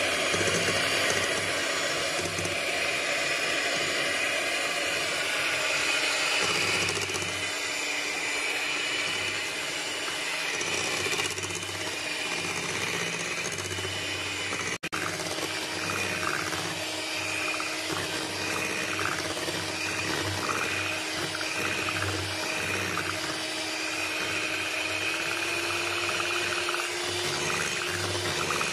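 Electric hand mixer running steadily, its beaters whisking thin cake batter in a glass bowl. The motor's hum steps up in pitch near the end as the speed rises.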